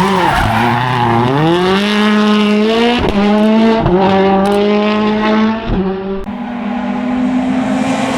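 Rally car engine under hard acceleration: the note dips, climbs quickly, then holds at high revs. It is broken by three quick gear shifts, each marked by a sharp crack.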